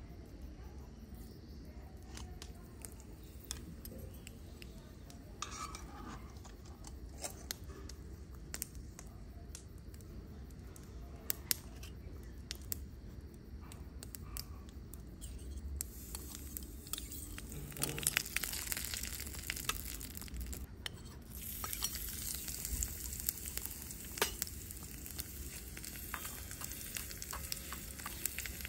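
Oil sizzling in a miniature iron wok, with scattered small pops and clicks; the sizzle grows louder and steadier in the last third as food goes into the pan. Near the end a small spatula stirs and scrapes in the wok.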